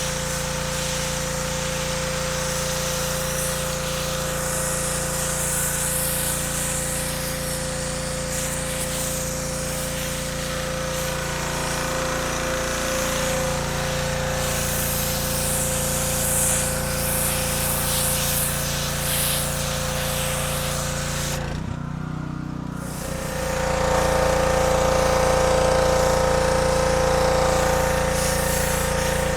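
Gas pressure washer running steadily with the hiss of its spray. About two-thirds of the way through, the spray cuts out and the engine note dips briefly, then both come back slightly louder.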